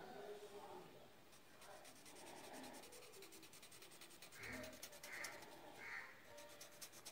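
Faint pencil shading on paper: quick, even, scratchy back-and-forth strokes. About two-thirds of the way in, three short cries sound in the background, under a second apart.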